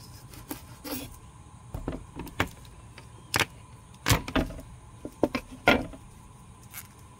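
Kitchen knife and garlic on a bamboo cutting board: irregular sharp taps and knocks of the steel blade against the wood. The loudest thump comes about four seconds in, as the clove is crushed under the flat of the blade, with another near six seconds.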